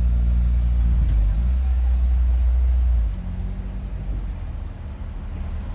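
Exhaust of a Hyundai Tucson 2.0 running without its rear silencer: a deep, steady rumble that drops in level about three seconds in and turns uneven.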